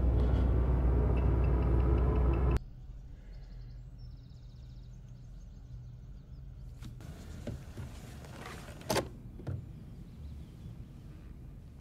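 A loud, low rumbling drone that cuts off abruptly about two and a half seconds in. Quiet room tone follows, with a few faint clicks and a sharper click about nine seconds in.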